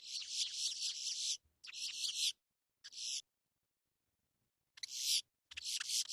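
Recorded boat-tailed grackle calling: harsh, noisy high-pitched calls in about five bouts with short silent gaps between them.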